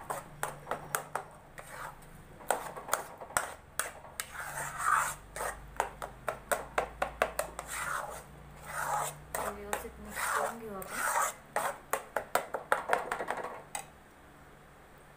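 Steel spatula scraping and knocking against a steel kadhai while thick puran of cooked chana dal and jaggery is stirred. Runs of quick sharp taps alternate with longer rasping sweeps, and the stirring stops near the end.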